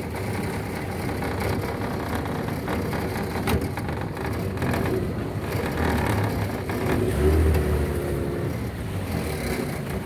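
Small boat motor running at low speed, with a steady low rumble and a brief change in its note about seven seconds in.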